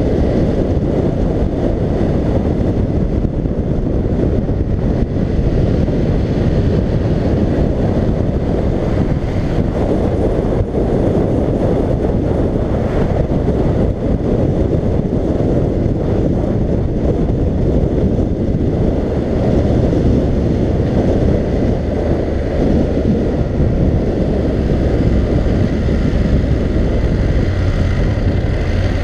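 Wind rushing over a helmet-mounted microphone, with a BMW F750GS's parallel-twin engine running underneath as the motorcycle rides along. Near the end, as the bike slows, a low engine hum comes forward.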